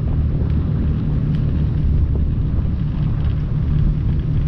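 Wind blowing across the microphone on the open upper deck of a moving riverboat, over the steady low drone of the boat's engine.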